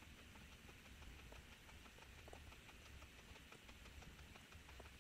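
Near silence: faint room hiss with a few soft, scattered taps of a fingertip on a remote controller's touchscreen.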